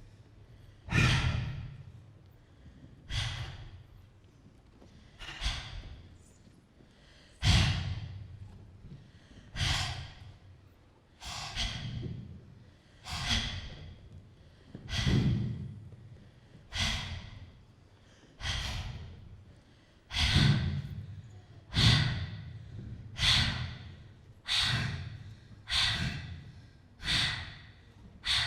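A series of loud, sighing breaths, each starting sharply and trailing off, repeating about every one and a half to two seconds and coming a little faster toward the end.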